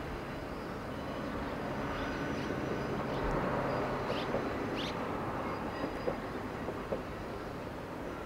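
Distant diesel-hauled trolley train running along a hillside line: a steady rumble of engine and wheels that swells a little about three seconds in.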